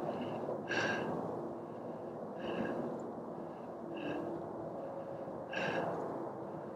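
A man breathing hard, four breaths about a second and a half apart, catching his breath after climbing in heavy heat.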